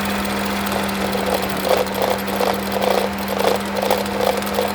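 Turbocharged 1.6-litre four-cylinder engine of a 2014 Ford Escape running with a steady hum, joined about a second and a half in by an uneven pulsing, several pulses a second. The owner puts the fault down to a sticking turbo wastegate valve.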